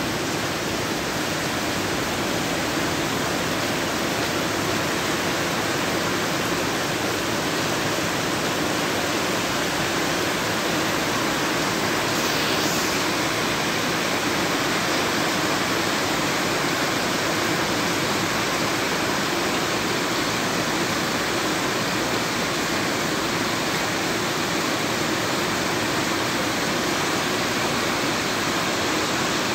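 Heavy rain and running floodwater making a steady, even rush.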